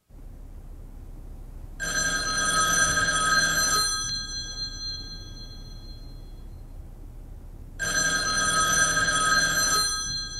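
Telephone bell ringing twice, each ring about two seconds long with about four seconds between them, in the usual on-off ring pattern of a phone.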